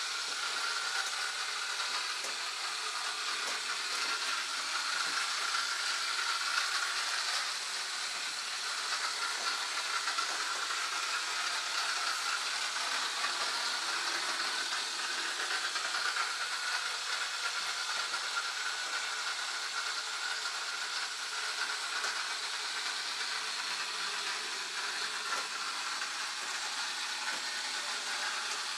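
Small kit-built electric motor on a toy boat running steadily, with a hissing buzz and a faint wavering whine.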